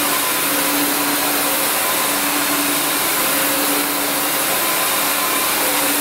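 Narwal S10 Pro cordless wet-dry vacuum mop running steadily: an even suction rush with a steady motor hum under it.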